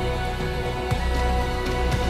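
Background music with held notes over a steady low bass.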